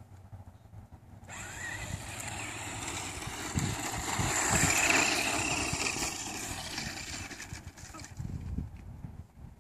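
A 4WD radio-controlled truck tearing across sandy dirt, its motor running at speed with a high-pitched whine. The whine rises about a second in, is loudest midway and fades as the truck drives off.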